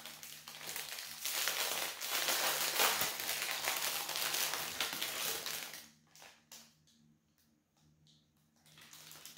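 Packaging crinkling and rustling as an item is unwrapped by hand, dense for about six seconds, then stopping, with a few faint taps and rustles after.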